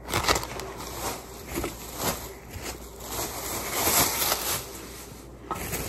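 Thin plastic bag and plastic wrapping crinkling and rustling as they are handled, in uneven crackles with no steady rhythm.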